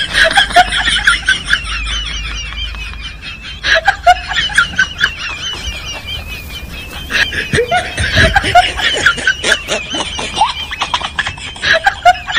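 High-pitched laughing and giggling in long, wavering runs, broken briefly about four and seven seconds in.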